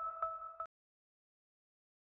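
Fading tail of an electronic chime tone, pulsing about eight times a second, that cuts off about two-thirds of a second in, leaving dead silence.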